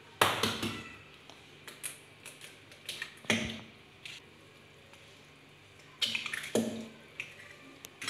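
Raw eggs being cracked on the rim of a plastic blender jug and emptied into the milk inside: a few sharp knocks and shell cracks, with wet drips and splats and light clatter in between.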